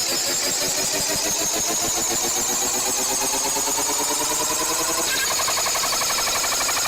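Synthesized emergency-alert alarm tone: a rapidly pulsing buzz that rises slowly in pitch, then changes to a different pulsing tone about five seconds in.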